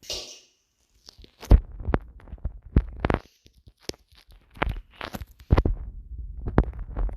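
Close-up handling noises: irregular taps and knocks with dull low thuds, and a short rustle at the start.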